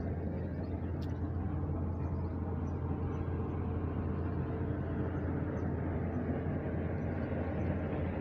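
Steady low outdoor rumble, even and unchanging, with a faint steady hum in it.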